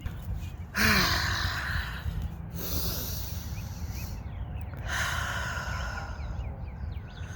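A person taking three long, noisy breaths in a row, each about a second and a half, over a low steady rumble.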